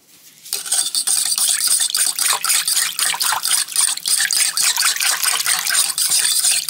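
Liquid stir-fry sauce being whisked briskly in a small bowl: rapid, even strokes of the utensil clinking and sloshing against the bowl, starting about half a second in.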